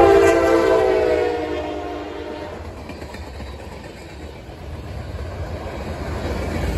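A CSX freight locomotive's horn sounds a held multi-tone chord as the engine passes and stops about two and a half seconds in. It leaves the steady rumble of boxcars rolling by on the track.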